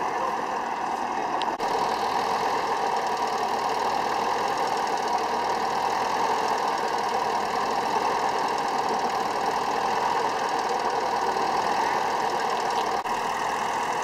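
Vintage grey Ferguson tractor's engine running steadily.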